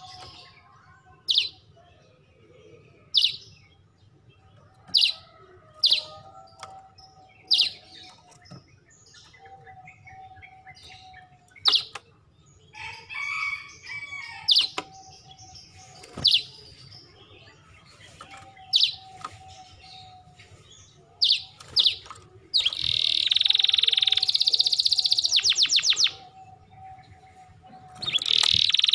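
Canary giving short, sharp, high chirps about every two seconds, then breaking into loud, fast trilling song about 23 seconds in. The song stops briefly and starts again near the end.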